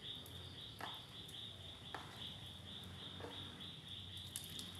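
Faint, high-pitched chirping repeating steadily about three times a second, with a few soft clicks about a second apart.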